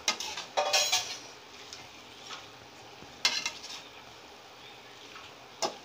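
Metal spoon scraping and knocking against an aluminium pan while stirring pasta into a thick masala, a few separate strokes about one to three seconds apart.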